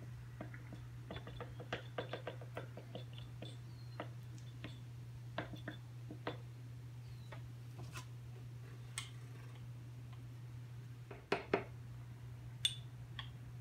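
Wood glue bottle squeezed out in beads over a wooden guitar body, giving small scattered clicks and squelches over a steady low hum. Near the end come a few sharper knocks as a putty knife is taken up to spread the glue.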